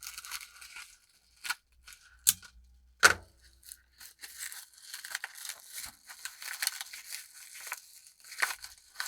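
Paper packaging being handled and torn open by hand: three sharp crackles in the first few seconds, then steady crinkling and tearing of paper.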